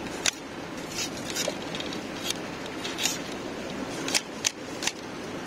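Light, irregular clicks and rubbing from a telescopic carbon pole fishing rod being handled while its line is wound up, over a steady background hiss.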